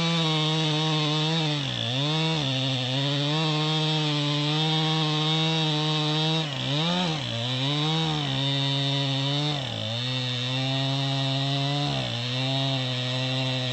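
Chainsaw running at high revs while cutting through a log, its pitch dipping several times as the chain loads up in the cut and then recovering.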